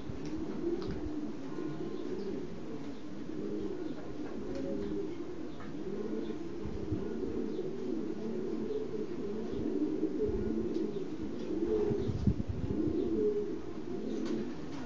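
A loft full of racing pigeons cooing, with many low coos overlapping without a break.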